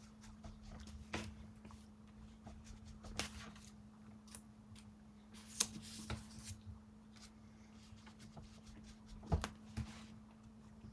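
Scattered soft taps and brushing scuffs of a round foam ink blending tool being dabbed on an ink pad and rubbed along the edges of paper pieces, over a faint steady hum.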